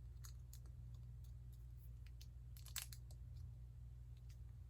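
Faint, scattered clicks of small plastic Lego pieces being handled, over a low steady hum; the clearest click comes a little under three seconds in.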